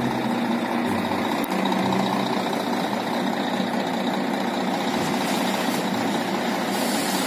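Heavy dump truck's engine running steadily while the tipper body is raised to unload.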